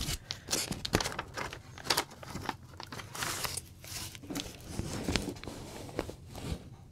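Crinkling and rustling of a clear plastic outer sleeve and paper insert as a vinyl LP is slid out of its jacket and handled, with irregular light rustles and small clicks.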